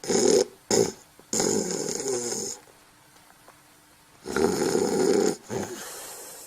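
Snoring, in rough rattling breaths: two short snorts and a longer snore in the first two and a half seconds, a pause of about two seconds, then two more snores from about four seconds in.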